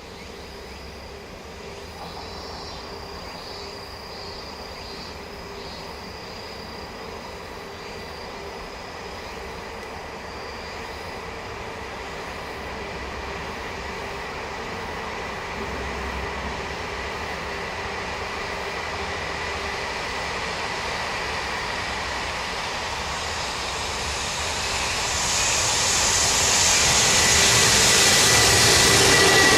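A freight train hauled by an electric locomotive approaching on the line, its rumble and whine building steadily and growing much louder with hissing wheel-on-rail noise in the last few seconds. Insects chirr faintly in the first part.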